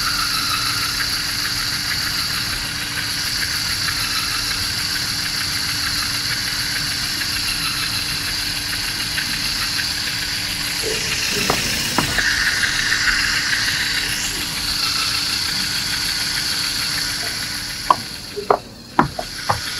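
LEGO Technic car's electric motors and gearing whining steadily as its rubber tyres drive over a corrugated cardboard ramp. A couple of knocks come about halfway, and near the end the motor sound dips under a quick run of sharp knocks as the wheels climb onto and drop off loose wooden blocks.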